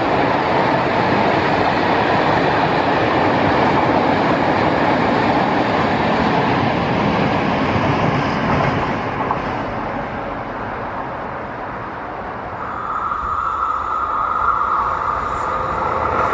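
Rolling noise of a freight train of tank wagons passing on the rails, fading away about two thirds of the way through. Near the end a steady high whine grows louder as the next train, an Interregio passenger train, approaches.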